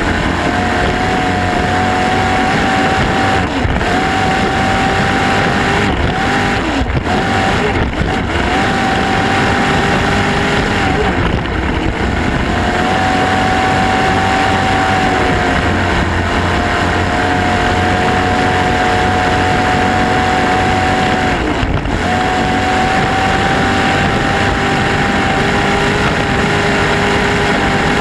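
Racing garvey's engine running flat out at speed, a steady high whine that dips briefly several times, about a dozen seconds apart or less, over a loud rush of wind and water spray.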